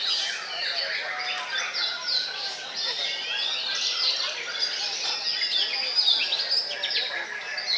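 White-rumped shamas singing: a dense, unbroken run of overlapping whistles, quick rising and falling glides and trills, as several caged contest birds sing at once.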